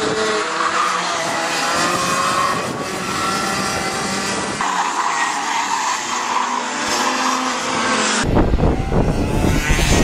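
Several racing kart engines running at speed on track, their pitch wavering up and down as they go through the corners. The sound changes abruptly twice, about four and a half and eight seconds in, the last part louder and fuller.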